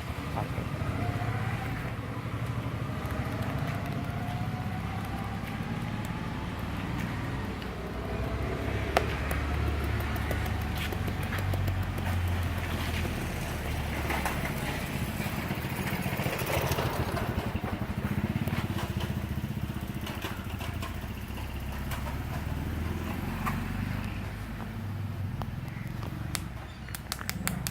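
Steady rumble of street traffic with motorcycles passing, with scattered sharp clicks and taps, one sharp click about nine seconds in and a quick run of clicks near the end.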